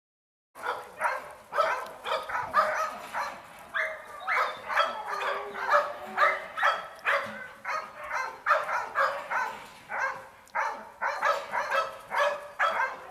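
Dogs barking over and over in quick succession, about two or three barks a second, starting about half a second in.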